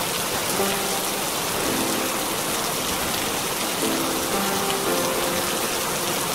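Steady rain, an even hiss of falling water, with a slow melody of held notes playing over it.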